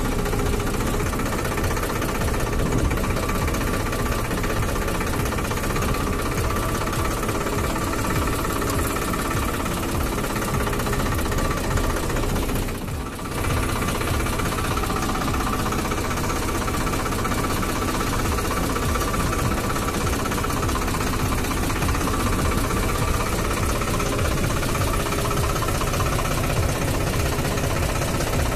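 Farmtrac 60 tractor's diesel engine running steadily as the tractor drives along, with a brief dip in level about halfway through.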